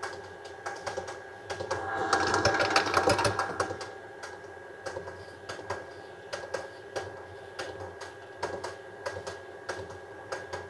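An electric mixer running steadily as it beats cake batter, with quick rasping strokes of a lemon being zested by hand on a zester; the scraping gets louder for a second or so about two seconds in.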